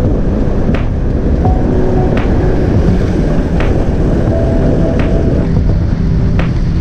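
Steady wind rush and road noise on the microphone of a moving motorcycle, loud and low. Background music sits over it, with a few held notes and a sharp tick about every second and a half.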